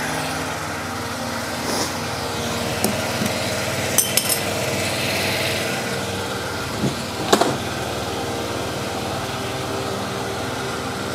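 Honda Elite 80 scooter's small four-stroke single-cylinder engine idling steadily, running well just after starting. A few sharp clicks come about four and seven seconds in as the scooter is handled.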